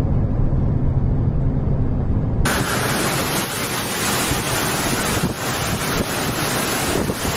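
A steady low rumble, then about 2.5 s in an abrupt switch to a loud, even hiss of storm-force wind driving heavy rain.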